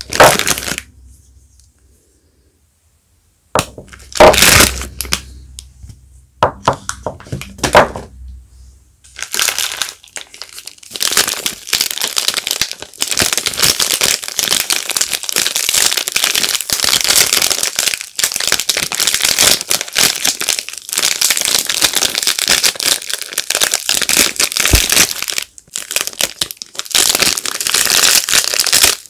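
Soap packaging being unwrapped, crackling and crinkling in the hands. A few short bursts with pauses between, then continuous crinkling from about a third of the way in.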